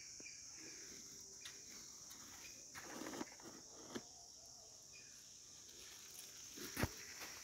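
Faint, steady high-pitched chirring of insects, with a few soft footfalls and scuffs from an Indian pangolin walking on sandy ground. The loudest of them is a sharp knock near the end.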